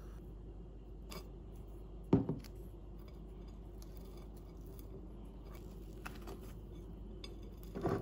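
A table knife spreading chocolate spread on waffles, clicking and scraping against the waffles and the plate, with one sharp loud knock about two seconds in and a few lighter clicks later. A steady low hum runs underneath.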